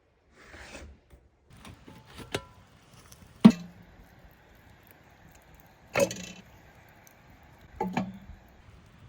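Cooking handling sounds: a short rustle, then three sharp knocks a couple of seconds apart, each with a brief low ring, over a faint steady hiss.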